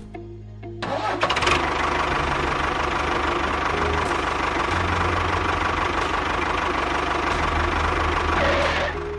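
An engine starting about a second in, running steadily for several seconds, then cutting off near the end.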